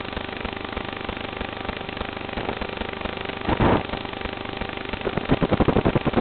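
FPV quadcopter's motors and propellers heard through the onboard camera's microphone: a steady whir with wind noise, surging loudly about three and a half seconds in and again in a fast-pulsing burst near the end as the throttle is punched.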